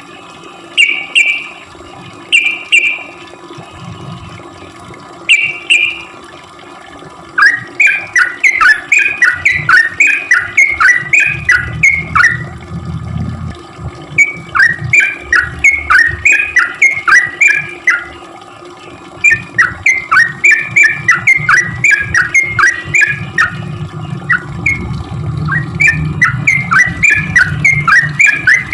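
Yellow-vented bulbul (trucukan) singing its rapid 'cuk cuk' chatter: quick, down-slurred chirps, about six a second, in phrases of a few seconds separated by short pauses. A few fuller warbled notes come in the first few seconds.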